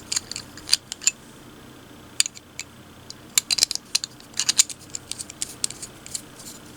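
Irregular small clicks and clinks of the parts of a magnetic quick-release camera mount and its screw being handled.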